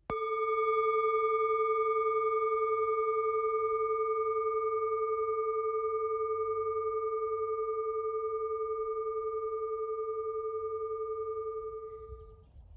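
A singing bowl struck once, ringing out in a long sustained tone with a slow waver. It fades away near the end.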